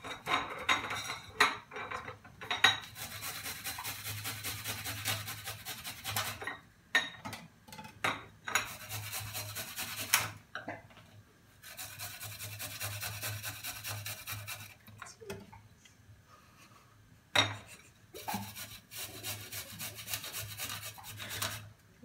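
Garlic cloves being grated on a metal hand grater: rasping scrapes in four spells of a few seconds each, with pauses and several sharp knocks between them, most in the first few seconds and one loud one later.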